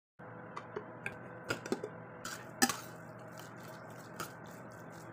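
Metal ladle mashing cooked rice and toor dal in a pressure cooker: soft squishing with irregular clinks and scrapes of the ladle against the pot, the sharpest about two and a half seconds in, over a steady background hum.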